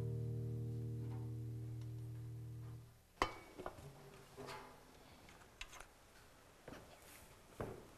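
A held keyboard chord with a deep bass note, slowly fading, ends about three seconds in. Then come scattered light clicks and clinks of metal communion trays being handled at the table, the sharpest one just after the music stops.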